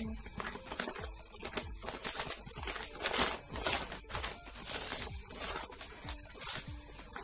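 Gift wrapping paper being torn and pulled off, with the crinkle of a clear plastic bag, in several rustling bursts with the loudest in the middle.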